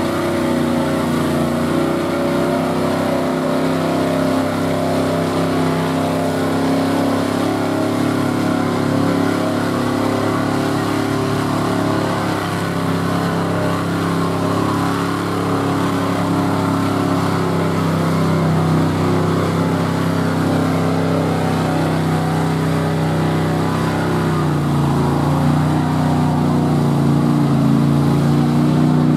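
Square-body pickup's engine held at steady high revs as the truck churns through deep mud, with a brief dip in pitch about 25 seconds in.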